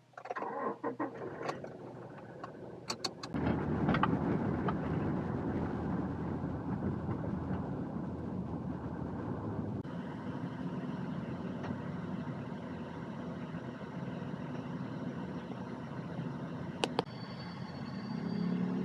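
A few clicks and knocks, then a vehicle engine starts about three seconds in and keeps running steadily.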